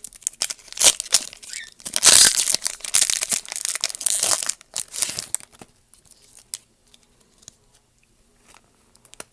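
Foil wrapper of a Magic: The Gathering booster pack being torn open and crinkled, loud for about the first five seconds. After that, only faint scattered ticks and rustles.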